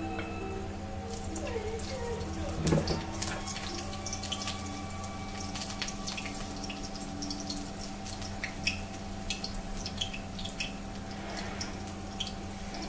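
Hot cooking oil sizzling and crackling in a steel kadai on a gas burner, with many sharp little pops, as spices fry in it; a louder clatter comes about three seconds in.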